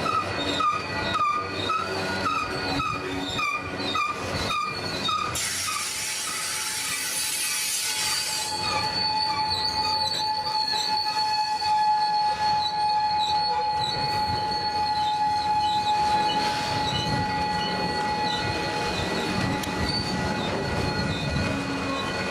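Freight train cars rolling slowly, their wheels clicking over rail joints about twice a second and squealing. About five seconds in comes a hiss lasting some three seconds, followed by a long, steady wheel squeal.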